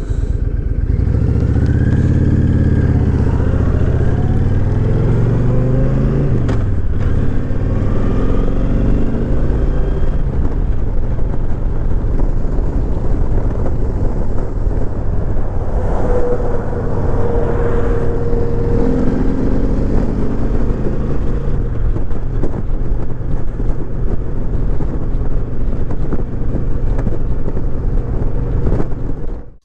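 Honda VTX1300R's V-twin engine running under way, its pitch rising and falling through the first several seconds as it speeds up and shifts, then settling to a steady cruise.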